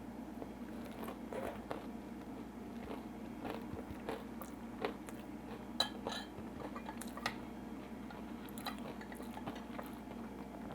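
Someone chewing crispy-coated fried tilapia: faint, scattered crunches, with a few light clicks of cutlery on a plate.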